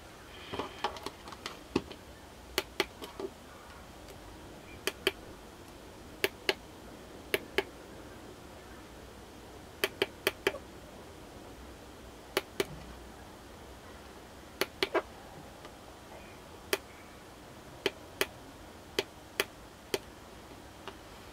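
Tactile push-button switches on a DSO138 oscilloscope kit board clicking as they are pressed and released, sharp clicks mostly in pairs every second or two, with a little hand rustle near the start.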